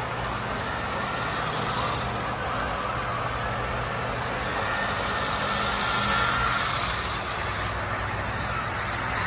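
Kyosho Mini-Z AE86 RC drift car driving in normal mode: its small electric motor whines, rising and falling with the throttle, over a steady low hum.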